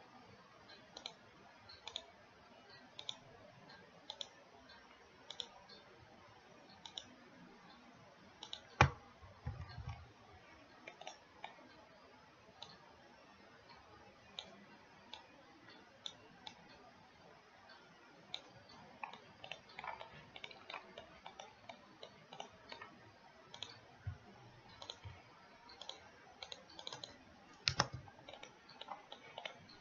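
Computer mouse clicking: scattered, irregular clicks, with two louder knocks, one about nine seconds in and one near the end.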